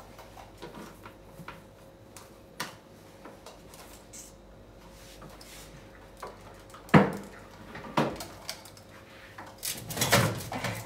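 Scattered kitchen knocks and clatter as things are handled at the counter and oven: a few light taps, one sharp knock about seven seconds in, another a second later, and a cluster of clatter near the end.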